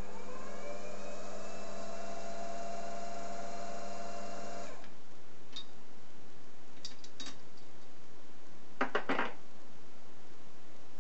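Optimum D180x300 Vario mini lathe starting up: the motor and spindle whine rises in pitch as the lathe runs up to speed, holds steady, then cuts off suddenly a little under five seconds in. A few light clicks follow, then a short cluster of metallic knocks about nine seconds in.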